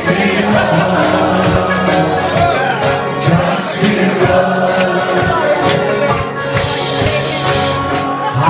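Live acoustic folk music: an acoustic guitar strummed and a bodhrán beaten in rhythm, with singing.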